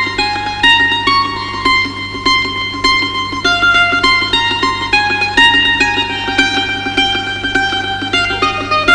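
Background music: a plucked-string melody, mandolin-like, quick notes over a steady low drone.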